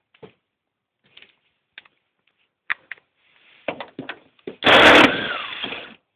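Scattered clicks and taps of hand tools working the stock hood bolts loose, then a loud, harsh rush of noise about five seconds in that fades away over about a second.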